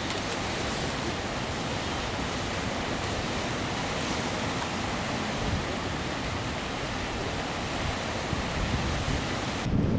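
Sea surf breaking against a rocky shore below a cliff: a steady rush of waves mixed with wind. Just before the end the sound changes to a louder low buffeting of wind on the microphone.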